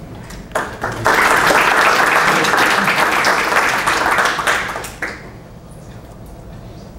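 Audience applauding: a few scattered claps, then dense clapping for about four seconds that dies away about five seconds in.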